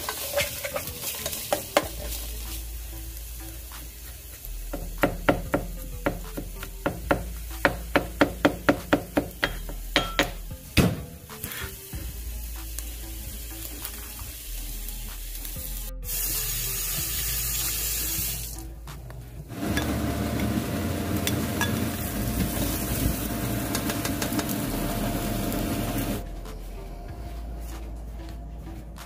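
Sliced onions sizzling in a frying pan as they are stirred. About a third of the way in comes a run of sharp knocks, about two a second, from a cleaver chopping on a cutting board. Later there is a louder steady rushing noise, all over light background music.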